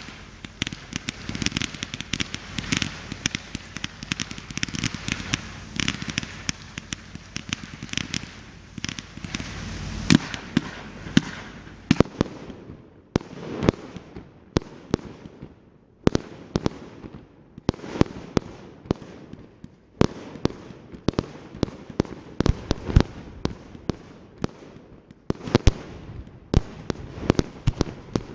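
Fireworks display: dense crackling for about the first twelve seconds, then a quick run of separate bangs from aerial star bursts, a few a second with short gaps between them.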